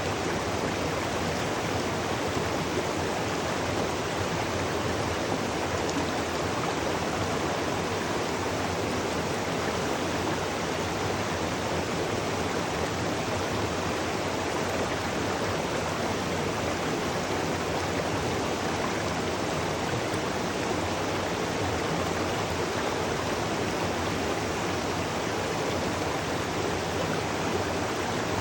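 Waterfall and stream water rushing in a steady, even roar.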